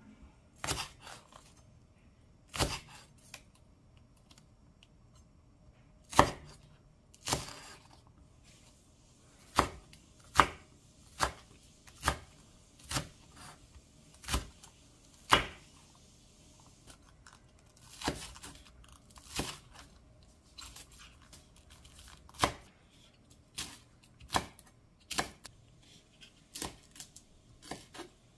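Kitchen knife cutting a Korean green onion (daepa) on a wooden cutting board: sharp, separate knocks of the blade hitting the board, irregular and roughly one a second.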